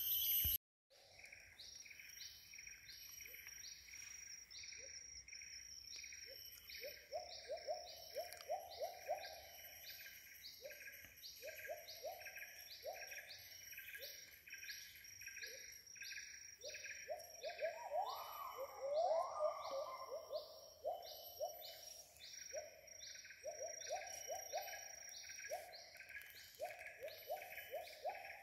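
Rainforest sounds: a steady high pulsing chorus, about two pulses a second, under a bird calling in runs of quick rising notes, the loudest and highest run about two-thirds of the way through.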